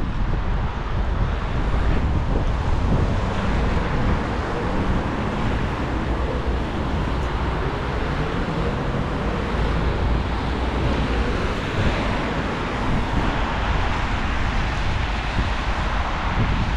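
Wind buffeting the microphone in a steady low rumble, over an even hiss of rain and traffic on wet streets.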